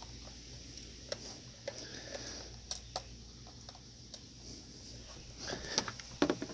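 Scattered light clicks and taps of hands handling a plastic toy gel blaster and its hopper while gel beads are loaded, with a few louder clicks near the end.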